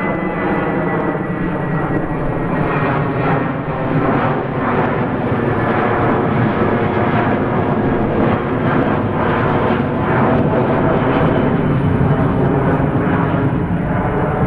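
Airplane engines running loud and steady, with a thin high whine that slides slightly lower over the first few seconds.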